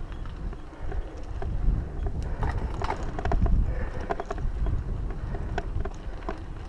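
Mountain bike riding over a dirt singletrack: a low wind rumble on the microphone with the clicking and rattling of the bike over bumps, busiest about two to four seconds in.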